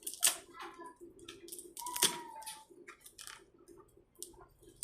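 Plastic packaging and tape being picked and pulled at by hand: a run of crinkly clicks and crackles, with two sharp snaps, one near the start and one about two seconds in, the second followed by a brief squeak.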